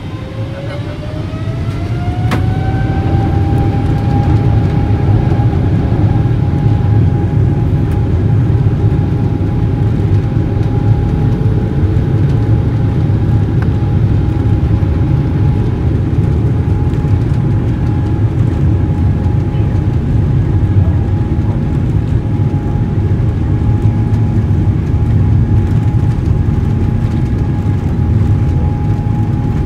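A Boeing 777-300ER's General Electric GE90-115B turbofan, heard from the cabin beside the engine, spooling up to takeoff thrust. A whine rises in pitch and loudness over the first few seconds, then holds steady over a loud low roar as the aircraft accelerates down the runway.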